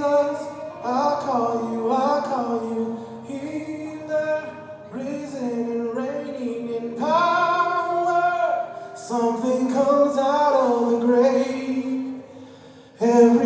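A vocalist singing a worship song line with full voice, pushing toward the top of their register for a microphone level check, with held, bending notes and a short break near the end.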